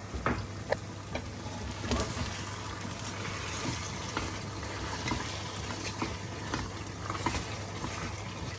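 A spoon stirring chicken bhuna in a pan, with scattered clicks and scrapes of the spoon against the pan over a steady sizzle of the curry cooking in its own juices.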